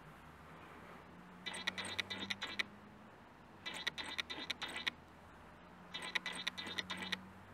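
Camera lens autofocus motor hunting, heard in three bursts of rapid buzzing clicks, each about a second long, over a faint steady low hum.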